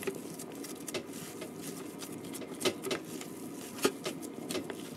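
Raw ground-meat mixture being kneaded and squeezed by hands in disposable gloves in a foam tray: irregular wet squishing and rubbing, with scattered sharp clicks and two louder ones in the second half.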